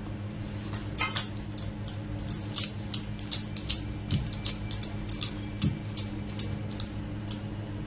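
Wooden rolling pin rolling out a ball of wheat dough on a marble rolling board (chakla): a quick, irregular run of clacks and knocks of wood on stone, about two or three a second, over a steady low hum.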